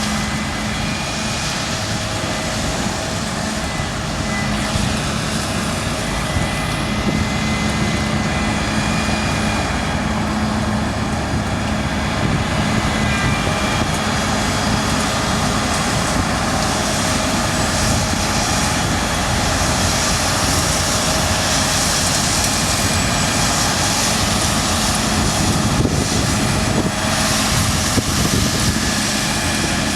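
Claas Lexion 7600 combine harvester running steadily under load while cutting beans: a continuous engine and machinery drone with a constant low hum.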